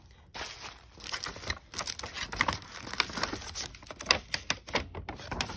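Clear plastic packaging crinkling and rustling in short, irregular crackles as it is handled.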